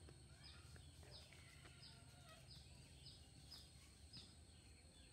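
Faint birdsong in garden trees: one bird repeating a short, high, slightly falling note again and again, about every half second, with fainter chirps and warbles from other birds.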